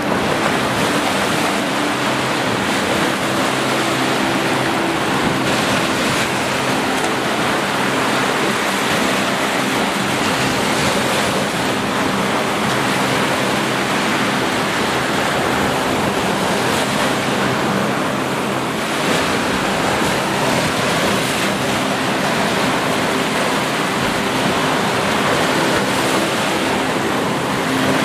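Gentle surf: small waves breaking and washing up onto a sandy beach in a steady wash, with faint low tones held steadily underneath.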